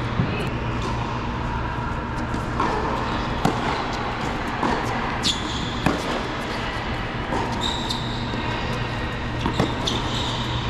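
Tennis rally on an indoor hard court: sharp knocks of racket strikes and ball bounces at irregular intervals, with a few short high squeaks of sneakers on the court, over a steady low hum.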